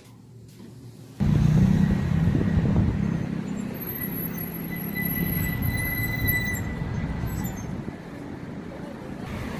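Road traffic noise that starts abruptly about a second in: a steady rumble of passing vehicles, with a faint high squeal in the middle.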